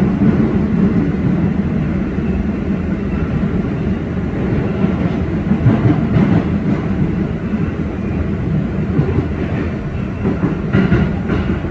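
New York City subway train passing at close range, its wheels rumbling and clacking on the rails.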